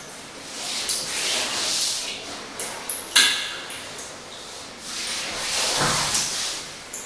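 Two slow swells of breathy hiss, each rising and fading over about two seconds, with a few sharp clicks in between.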